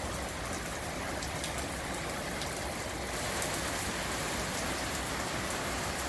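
Heavy rain falling steadily, with scattered sharp drop hits close by.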